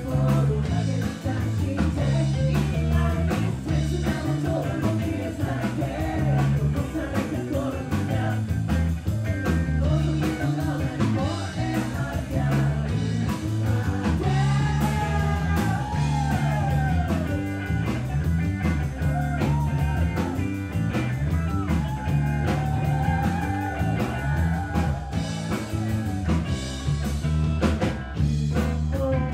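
Live rock band playing a song: electric bass, guitar and drums, with a male singer singing into a handheld microphone.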